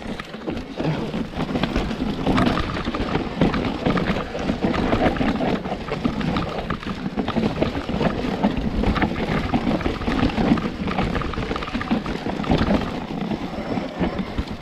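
Orange Four full-suspension mountain bike clattering down a rough, rocky descent: a continuous stream of knocks and rattles as tyres, suspension and frame take the stones, with a rush of wind over the microphone.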